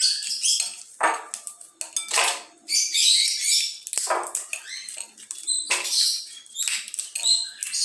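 Dry lima bean (fava) pods cracked open by hand: repeated crisp snaps and papery crackling of the brittle shells, with beans clicking onto a ceramic plate.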